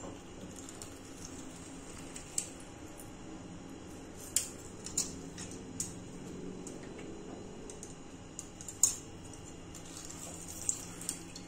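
Metal hand-held lemon squeezer pressing lime halves over a ceramic bowl, with scattered sharp clicks and clinks of the metal squeezer against the bowl, the loudest about nine seconds in.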